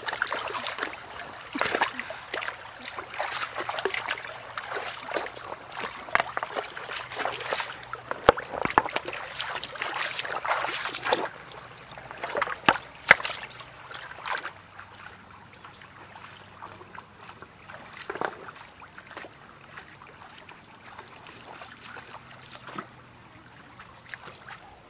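Water splashing and trickling in a shallow rocky stream as hands work in the water and feet wade, with many short splashes for about the first half, then mostly quieter flowing water with the odd splash.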